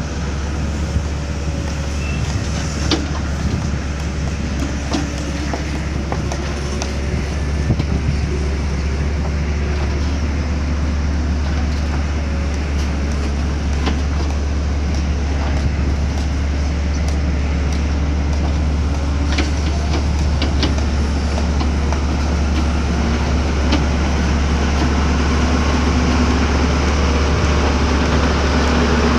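Backhoe loader's diesel engine running steadily with a strong low drone and a faint wavering whine, and a few sharp clicks or clanks from the machine as it works.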